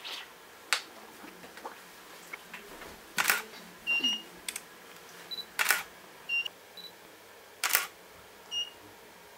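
SLR camera shutter firing during a studio shoot: one lighter click near the start, then three louder shots a couple of seconds apart. Short high electronic beeps sound between the shots.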